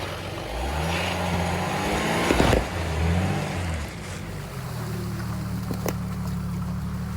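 Jeep TJ engine revving up and down under load, with a brief loud noise about two and a half seconds in, then settling to a steady low-speed run.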